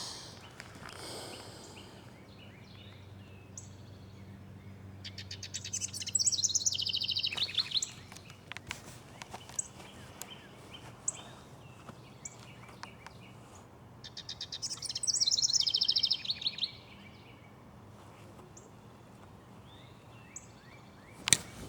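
Songbirds singing: two loud, rapid trills of quickly repeated high notes, a few seconds apart, with scattered short chirps in between.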